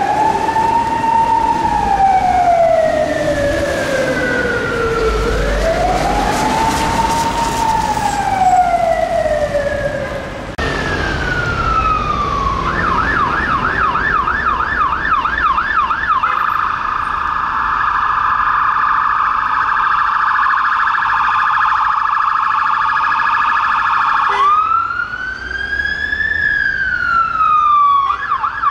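Police vehicle sirens on unmarked cars, first an unmarked Vauxhall Zafira's siren on a slow rising-and-falling wail. Then a Ford Transit police driver training van's siren switches from the wail to a fast yelp, then a very fast warble. It goes back to one wail sweep and then the yelp near the end.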